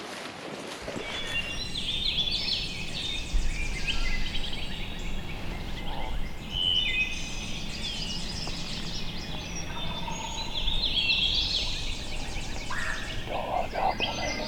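Birds singing at dawn, many short chirps and whistles overlapping, with a wild turkey gobbling among them.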